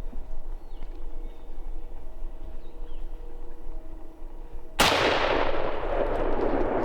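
A single shotgun shot at a wild turkey about five seconds in, its report rolling on in a long echo that fades over about two seconds.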